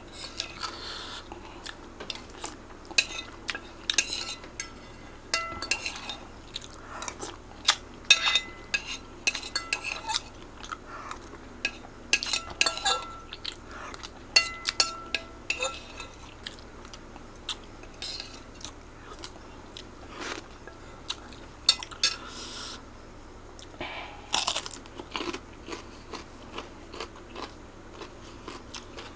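Close-miked eating of Acehnese fried noodles: chewing and biting, with metal cutlery clicking and ringing against a plate many times.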